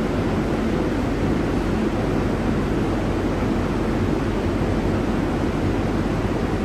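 New York City Subway R142A train running through a tunnel: a steady rumble of steel wheels on the rails, with no distinct clanks or changes.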